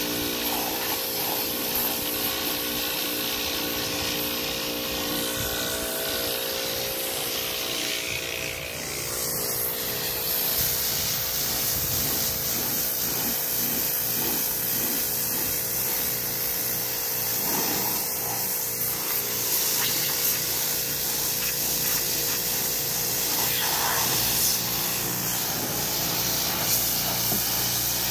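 Pressure washer running steadily, its jet of water hissing against a boat hull over the machine's constant drone.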